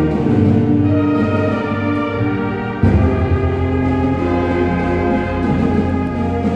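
High school marching band playing sustained brass chords in a school gymnasium, with a sudden loud entrance strong in the low range about three seconds in.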